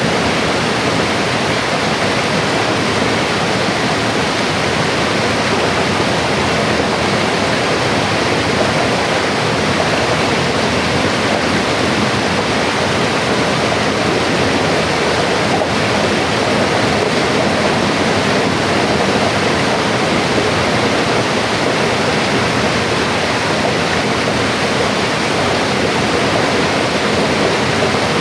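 Mountain river flowing: a steady, even rush of water with no other sounds.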